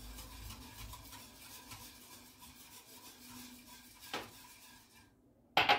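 A utensil stirring a pudding mixture in a stainless steel pot on the hob: a faint, repeated rubbing scrape against the pan. A short knock comes about four seconds in, and a louder one near the end.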